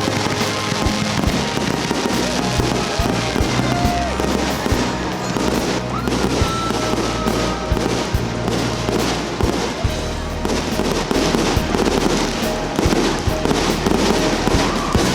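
Fireworks display: many sharp bangs of shells bursting, with dense crackle between them, over music playing.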